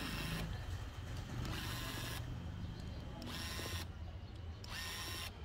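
A small motorised tool running in four short bursts, about one and a half seconds apart, each well under a second long.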